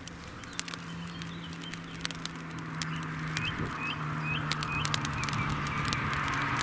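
Toyota GT86's flat-four engine running at a steady low note as the car approaches, growing louder towards the end. Around the middle a bird calls a quick series of short rising chirps.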